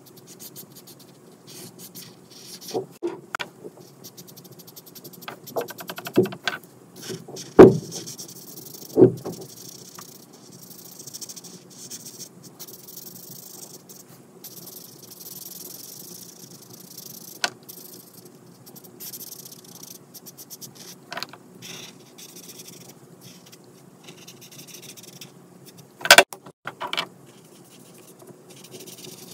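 Ohuhu alcohol marker tip rubbing and scratching across colouring-book paper in soft strokes. A few sharp clicks and knocks come as markers are put down and picked up to change colour, the loudest about a quarter of the way in and again near the end.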